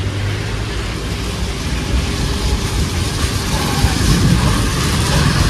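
Steady rain falling on a wet street. In the second half a motorcycle rides past on the wet road, its engine growing louder.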